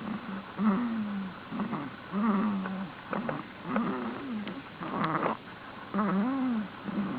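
Snoring: a quick run of short snores with a wavering pitch, coming more than once a second.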